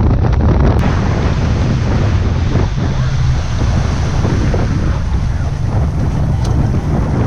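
Wind buffeting the microphone on the bow of a boat running fast over choppy water, with the low drone of the boat's engine and water rushing against the hull underneath.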